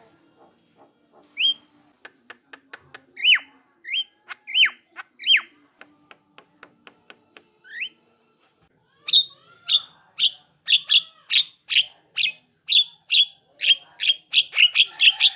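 Javan myna (jalak kebo) calling: soft clicks and several upswept whistled notes, then from about nine seconds a fast run of loud repeated notes that quickens near the end.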